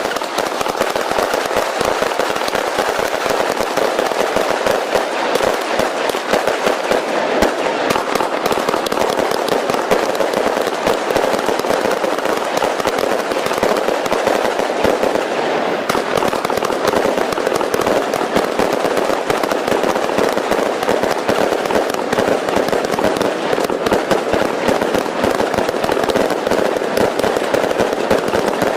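A long string of firecrackers going off, a rapid unbroken crackle of pops at a steady level.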